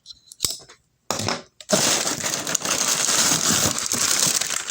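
Packing paper crinkling and crushing as it is handled inside an opened cardboard box. It starts after a couple of light knocks, then runs as a dense, continuous crackle from about a second and a half in.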